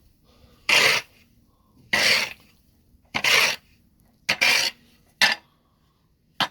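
Snow being cleared by hand to make a path: six short scrapes of a shovel through snow, about one a second.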